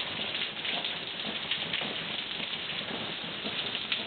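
Heavy rain mixed with hail pelting down on paving, hedges and a wall ledge: a dense, steady patter of countless small impacts.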